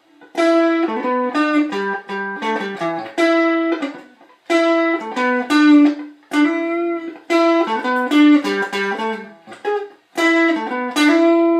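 Strat-style electric guitar playing a short melodic riff, its phrase repeated several times with brief gaps between.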